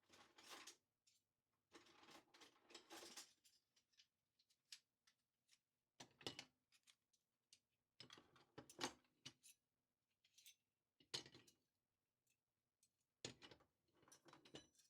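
Faint handling of kitchen-drawer items being sorted: rustling in the first few seconds, then scattered light clicks and clinks with pauses between them.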